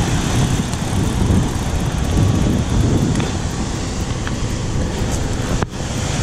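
Wind buffeting the microphone while riding along on a bicycle: a steady low rumbling rush with outdoor road noise mixed in.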